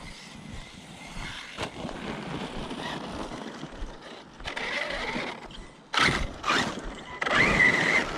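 Arrma Notorious RC truck's 1250kv Spektrum brushless motor whining under throttle as the truck runs over loose dirt, with tyres scrabbling on the ground. There are two loud bursts of throttle near the end, the second with a whine that rises and falls.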